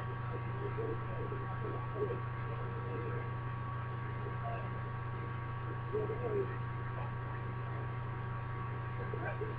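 A steady electrical hum, with a couple of faint, short sounds about two seconds in and again around six seconds in.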